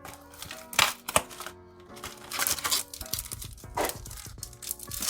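Foil booster-pack wrappers crinkling and tearing in several short bursts as trading-card packs are handled and opened, over steady background music.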